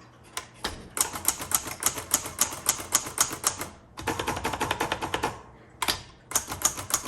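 Typing on a 1956 Hermes Rocket portable typewriter: quick runs of key strikes, several a second, broken by short pauses partway through.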